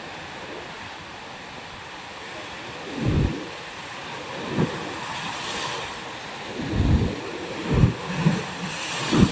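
Ocean surf washing over rocks as a steady hiss, with a brighter wash twice. From about three seconds in, gusts of wind rumble on the microphone in several short low bumps, the loudest part of the sound.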